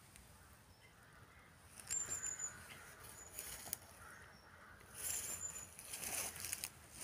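Footsteps and dry twigs and brush crackling as someone pushes through winter undergrowth, in two spells about two and five seconds in. A few short, thin high whistles come in between.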